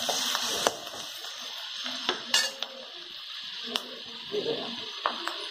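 Metal spatula stirring chopped onions and green chillies in a kadai, with a few scattered clinks and scrapes against the pan, over a steady sizzle of the vegetables frying in oil.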